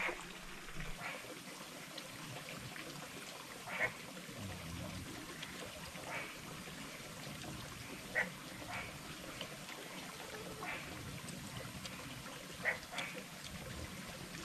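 Stream water trickling steadily, with short sharp sounds every couple of seconds.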